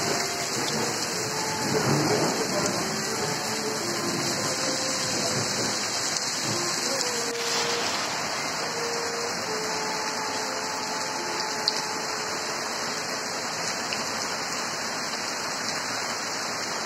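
Heavy rain pouring steadily onto trees and roof, a dense, even hiss.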